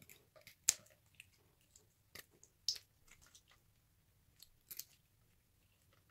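Scissors snipping into a rubbery squishy stress toy: several separate sharp snips a second or two apart.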